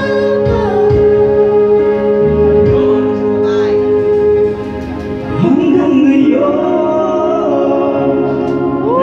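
A duet sung into microphones over amplified accompanying music: a long held note through the first half, then a sung phrase rising into held notes.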